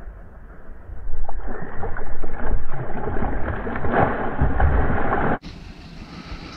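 Water splashing as a hooked fish thrashes at the surface of a pond near the bank, with a low rumble under it. The splashing grows louder about a second in and breaks off suddenly about five seconds in, followed by quieter water sounds.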